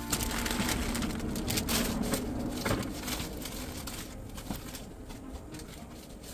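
Close-miked eating sounds of a person eating ramyeon with kimchi: a dense, irregular run of small clicky, crackly mouth noises, busiest in the first half and thinning toward the end.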